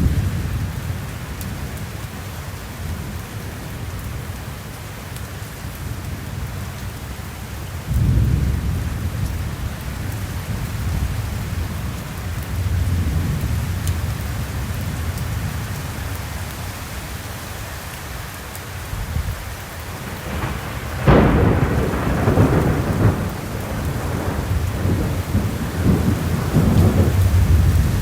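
Summer thunderstorm: steady rain with rolling thunder. A low rumble comes in about a third of the way through, and about three quarters of the way in a sudden sharp thunderclap, the loudest sound, breaks into rolling rumbles.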